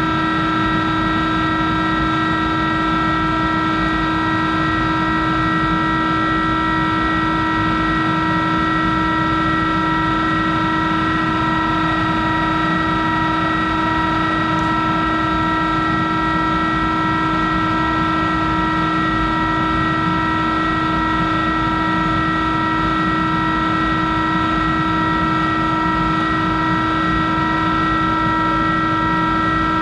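Steady electric-machine hum with several constant whining tones that never change pitch, from the Monarch 10EE lathe's drive running while the spindle is stopped.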